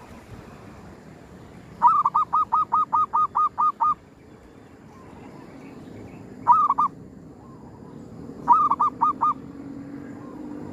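Zebra dove (perkutut) calling: a quick run of about ten clipped notes, then a short run of three and another of about five.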